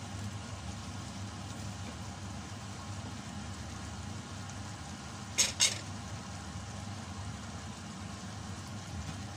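Chicken adobo in coconut milk simmering in a stainless steel pot, stirred with a wooden spoon at first, over a steady low hum. About five and a half seconds in come two sharp taps a fraction of a second apart, the loudest sounds.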